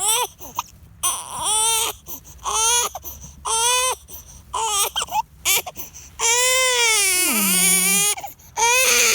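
Two-month-old baby crying: a run of short wails about a second apart, then a longer wail of about two seconds, around six seconds in, that drops in pitch at its end.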